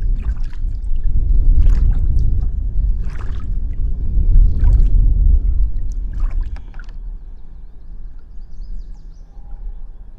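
Kayak paddle blades dipping and splashing in the river, about five strokes a second and a half apart, over a loud low rumble; the strokes fade out after about seven seconds.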